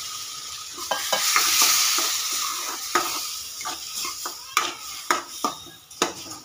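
Sugar syrup sizzling in semolina roasting in hot ghee in a metal kadhai, the hiss slowly dying away, while a steel spoon stirs and scrapes against the pan with sharp clinks that come more often toward the end.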